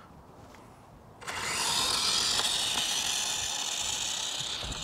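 Brushless-motor WPL D12 RC truck running flat out on a 3S battery: a high-pitched motor and gear whine that starts suddenly about a second in, holds steady and fades slowly.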